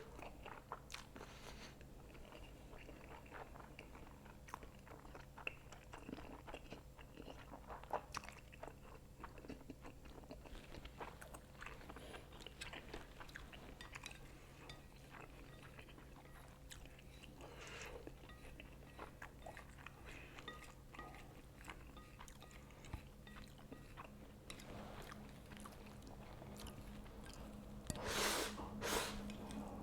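Faint close-up eating sounds: someone chewing a mouthful of instant noodles, with many small wet clicks scattered throughout. There are two louder bursts shortly before the end, over a faint steady low hum.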